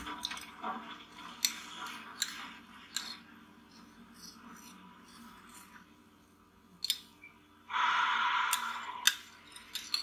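Metal teaspoon in a ceramic cup of milky coffee: several sharp clinks spaced a second or more apart, then a rasping scrape of about a second and a half near the end, the loudest sound.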